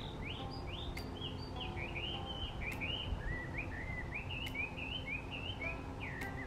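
Chinese hwamei singing a long, unbroken run of loud, varied whistled notes, each slurring up and down.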